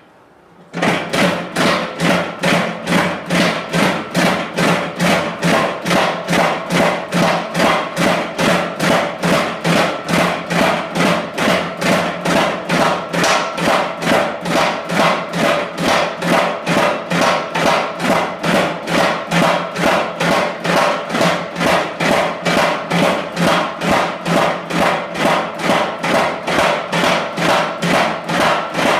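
Mechanical power hammer pounding a hot steel bar in a fast, even rhythm of blows, roughly two to three a second, with ringing steel under them, starting about a second in. The hammer is fitted with a leaf-forming head and is flattening the bar's end into a leaf.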